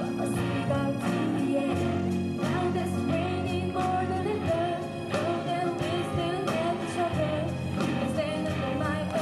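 A live band playing a pop-rock song through a PA, with a female lead vocalist singing over electric guitars, keyboard and drums.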